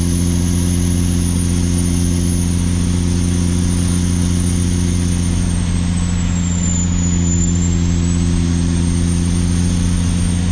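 Caterpillar 3406E inline-six diesel in a heavy truck pulling uphill under load at about 80,000 lb gross: a steady low engine drone with a high turbocharger whistle over it. The whistle drops in pitch about seven seconds in, then climbs back.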